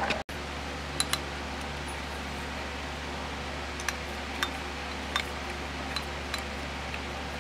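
Steady low hum of a fan, with a handful of light, short clicks scattered through it.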